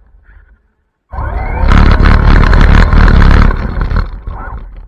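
A high-speed RC car rushing past close to the microphone: a rising motor whine cuts in suddenly about a second in, then a loud, overloaded rush of noise lasts about three seconds and fades out.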